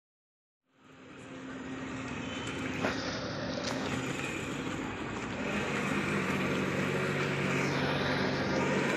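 Silence for under a second, then steady outdoor road noise fades in and holds: a continuous rumble and hiss of traffic, with one faint tap about three seconds in.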